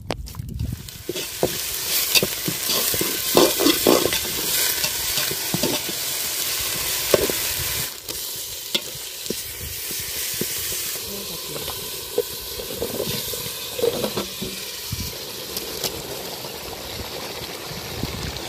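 Onions and paste sizzling in hot oil in an aluminium pot, with a metal spatula stirring and scraping against the pot in sharp clicks.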